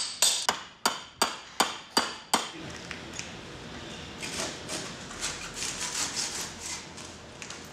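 Hammer blows, about three a second, knocking open a plaster field jacket around a dinosaur fossil. The blows stop about two and a half seconds in, followed by fainter irregular scraping and rustling.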